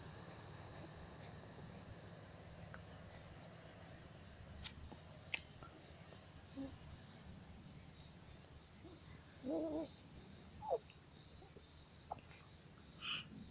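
A cricket chirping in a fast, even, high-pitched pulse throughout. About nine and a half seconds in, a baby gives a short wavering coo.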